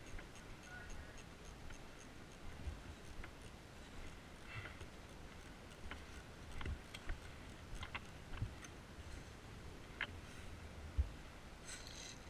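Faint, scattered sharp clicks and a few low thumps over a steady low hiss. The loudest thump comes about eleven seconds in.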